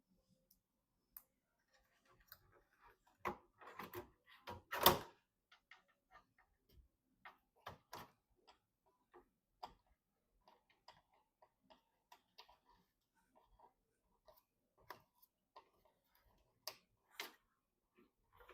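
Irregular small clicks, taps and knocks of computer parts being handled and fitted during a PC build. A louder cluster of knocks comes about three to five seconds in, then scattered light ticks.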